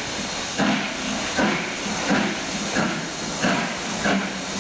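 Exhaust beats of BR Standard Class 7 'Britannia' steam locomotive 70013 Oliver Cromwell, a two-cylinder Pacific, pulling away from the station: evenly spaced chuffs a little over once a second, slowly quickening as it gathers speed, over a steady hiss of steam.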